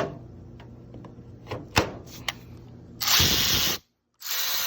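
Milwaukee M12 Fuel brushless cordless ratchet running in two short bursts of under a second each, starting about three seconds in, after a few clicks. The tool works.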